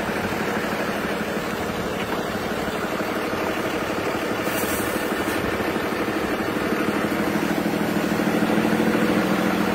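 Diesel engine of a medium-duty truck idling steadily, growing slightly louder near the end.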